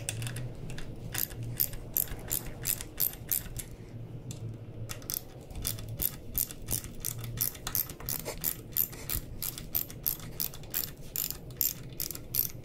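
Hand ratchet wrench with a 6mm hex bit clicking steadily, about four clicks a second with a short pause partway through, as it backs out the motorcycle rearset's mounting bolts.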